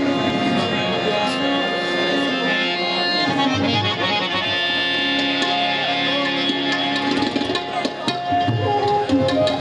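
Live folk music: a harmonium holding sustained chords under tabla drumming, with a man singing. A bamboo flute comes in near the end.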